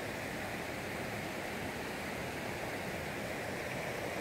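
Steady rushing of white-water rapids, an even wash of water noise with no breaks.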